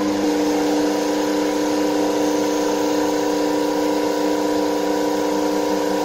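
Bench DC motor running at a steady speed and driving a washing machine universal motor by belt, spinning it as a generator: a steady electric motor hum with several fixed tones.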